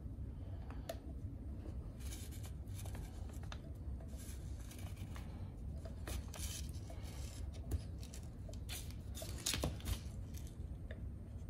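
Nitrile-gloved hands working rubber O-rings onto an oil filter canister cap with a small pick tool: soft rubbing and rustling with scattered light clicks, over a steady low hum.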